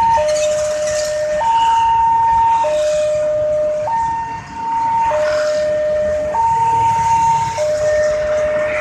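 Railway level-crossing warning siren sounding through a horn loudspeaker: a two-tone hi-lo wail, switching between a low and a high tone about every 1.2 seconds, with a brief break about halfway through. It is the crossing's newly fitted siren.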